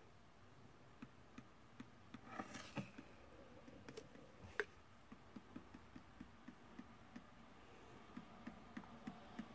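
Faint, quick ticks, a few a second, as contact lens solution is squeezed out of its bottle drop by drop, with one sharper tick about halfway.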